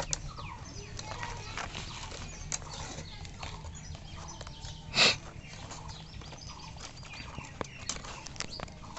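Light clicks and rustles of thin bamboo sticks and a plastic binding strip being handled and woven, with one louder short rustle about halfway through.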